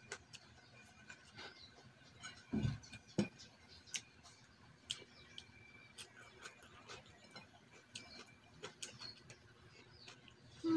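Small scattered clicks and smacks of a person eating by hand and chewing, with a low thump about two and a half seconds in.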